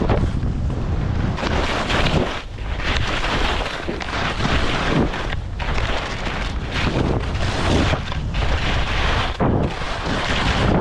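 Wind buffeting the microphone and skis scraping over hard, icy snow on a fast downhill run. The noise surges and drops every few seconds.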